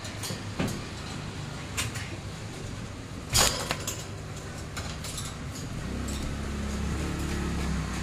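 A few sharp clicks and light knocks, the loudest about halfway through, over a low engine rumble that grows louder near the end as a motor vehicle passes.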